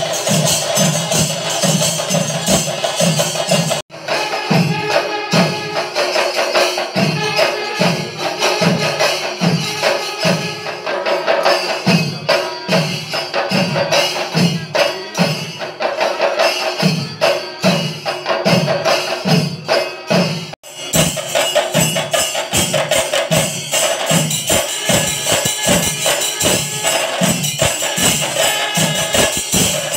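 Kerala temple-festival drumming with clashing cymbals: deep drum strokes about twice a second under a continuous metallic shimmer and a steady held tone. It breaks off for an instant twice.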